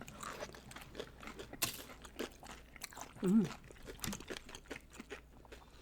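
Nacho tortilla chips being bitten and chewed close to the microphone: irregular sharp crunches, the loudest about one and a half seconds in. A short hum of voice about three seconds in.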